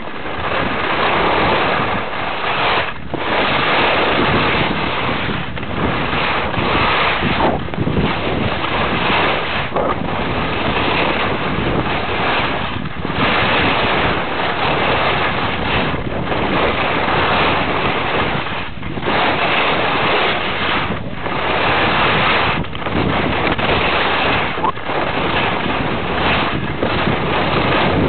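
Wind rushing over the microphone of a camera carried by a downhill skier at speed, mixed with the skis scraping over packed snow. The rush drops out briefly every few seconds.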